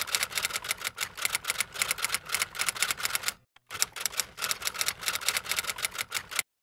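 Typewriter typing sound effect: rapid key clicks, several a second. The clicks break off briefly a little over three seconds in, then start again.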